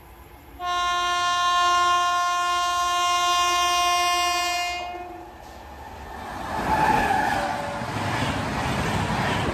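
Electric locomotive's horn sounding one long blast, starting about half a second in and lasting about four seconds. The loud rush and rattle of the express train then builds after the horn stops as it passes at high speed.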